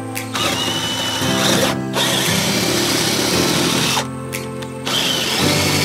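Handheld power drill boring a hole through a carpeted boat deck with a large twist bit. It runs in three spells, stopping briefly twice. Background music plays underneath.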